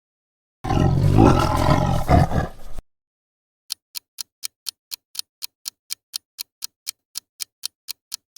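Tiger growling for about two seconds. Then a clock ticks steadily, about four ticks a second.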